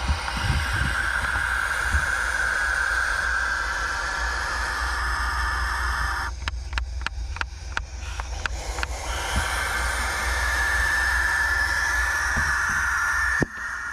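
Owl hissing in long, steady hisses, with a few seconds of sharp clicks between the two hisses; the second hiss cuts off suddenly near the end.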